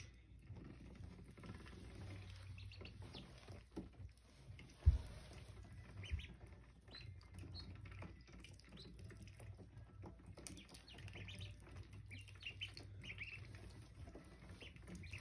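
Saxony ducklings peeping softly in short, scattered chirps while they peck and dabble at feed crumbles on a mesh platform, with small pecking clicks and two dull bumps about five and six seconds in.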